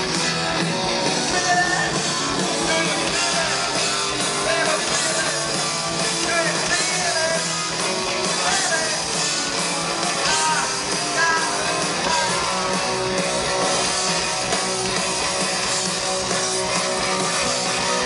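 Rock band playing live at full volume, with electric guitar to the fore, heard from within the audience.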